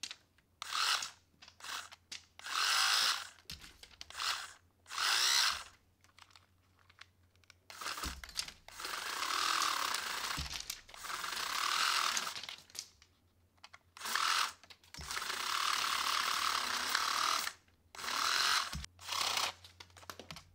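Toy money gun's small DC motor and gear reduction spinning the rubber feed wheel, with its case open, shooting paper five-dollar bills out of the front. It runs first in a string of short trigger bursts, then in three longer runs of a few seconds each.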